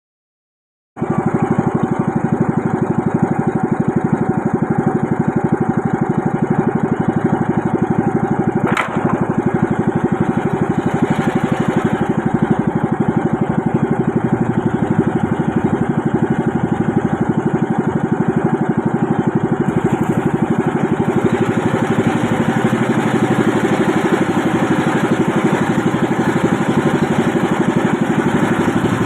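Small boat engine running steadily with a fast, even pulse. It cuts in suddenly about a second in, and there is a single sharp click about nine seconds in.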